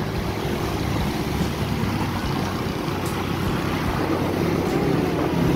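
Steady engine hum and rushing road and wind noise from riding in a moving vehicle through city traffic.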